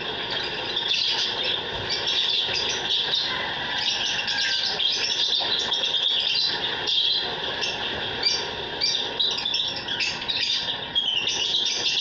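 Aviary birds, lovebirds among them, chirping and chattering: a dense stream of short, high-pitched chirps over steady background noise.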